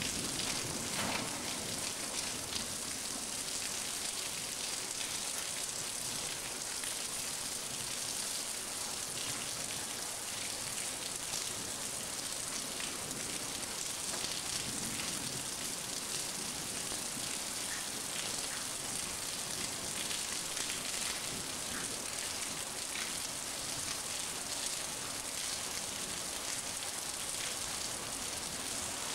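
Steady rain falling in a thunderstorm: an even hiss with many small drop ticks.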